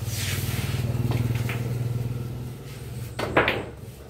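A motor vehicle's engine running nearby: a low, rapidly pulsing hum that swells about a second in and then fades away. A short sharp noise follows near the end.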